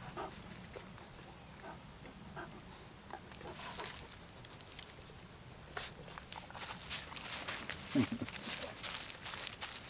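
A dog panting close by, plainest in the second half, with light clicks and rustles before it.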